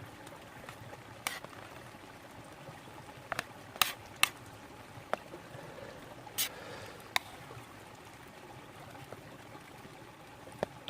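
A spoon stirring stewed steak and rice in a cooking pot, giving scattered sharp clinks and scrapes every second or so, over the steady babble of a brook.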